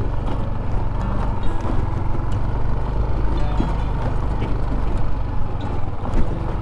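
Yamaha Aerox 155 scooter's single-cylinder four-stroke engine running at a steady riding speed, with scattered knocks and rattles from riding over a stony rough road. Music plays over it.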